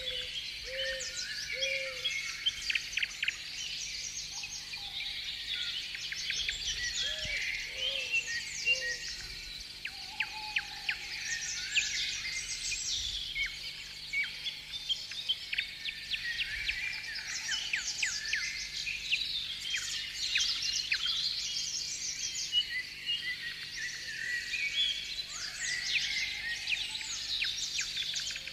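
A dense, continuous chorus of small songbirds chirping and twittering, with a few short, low calls near the start and again around seven to nine seconds in.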